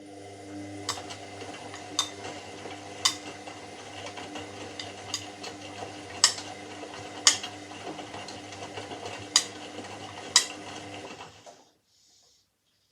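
Washing machine drum turning on its motor with a steady hum, while something in the load clinks sharply against the drum about once a second. The motor cuts off near the end, a pause in the tumble.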